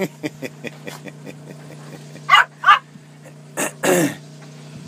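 Small dog yapping: a quick run of short little yaps in the first second, then a few sharper yips about half a second apart, the last one longer.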